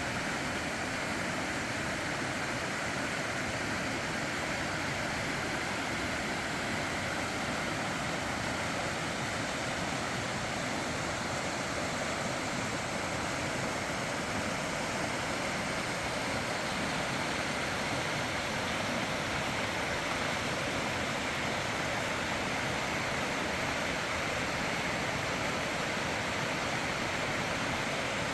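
Mountain stream rushing over rocks, a steady, unbroken wash of water.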